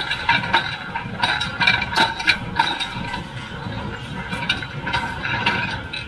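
John Deere 348 square baler running while baling hay: its mechanism rattles and clanks with frequent irregular knocks, busiest in the first half, over a steady mechanical drone.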